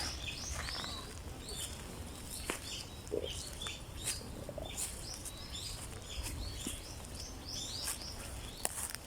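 Small birds chirping repeatedly in short calls, over a steady low outdoor rumble, with a few sharp clicks.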